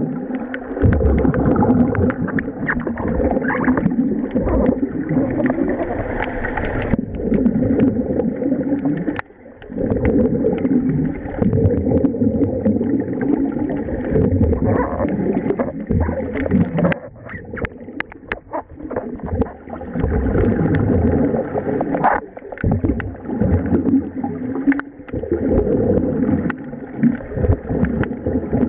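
Diving air escaping as bubbles, a steady, loud gurgling rush heard underwater, dipping briefly a few times.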